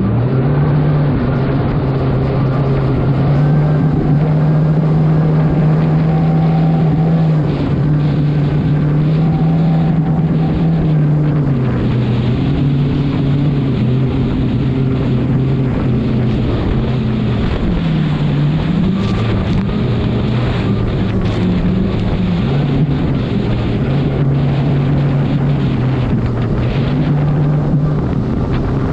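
Mercury Racing 300R outboard running hard on a speedboat at around 40 mph, its engine note stepping up and down with the throttle and dipping briefly just past halfway. Wind buffets the microphone throughout.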